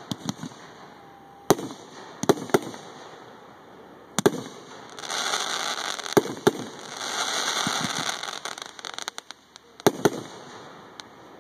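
Mortar-fired aerial firework shells bursting: a string of sharp booms, about nine in all, some in quick pairs, with two stretches of dense crackling hiss around the middle.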